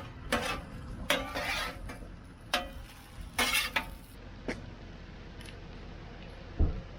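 Metal spatula scraping and stirring food across a Blackstone flat-top griddle in several short strokes over the first four seconds or so, mixing cheese into hash browns and eggs. A dull thump near the end.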